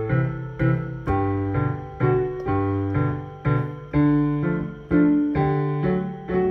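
Piano playing chords over a bass line, a new chord struck about twice a second, each ringing and fading before the next.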